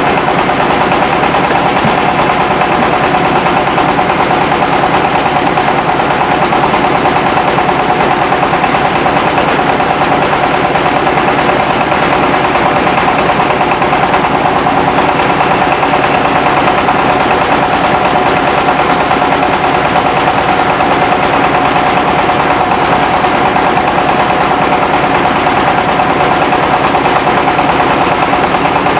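Mobile rice-milling machine running steadily under its engine, with a continuous mechanical hum and vibration and no change in pace.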